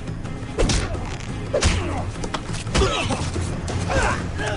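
A scuffle: four dull thuds of blows, about a second apart, with short grunts and cries, over orchestral music.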